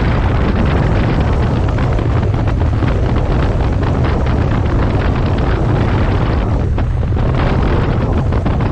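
Triumph 900cc motorcycle running along at road speed, its engine under heavy wind buffeting on the microphone, with a brief dip in the noise about seven seconds in.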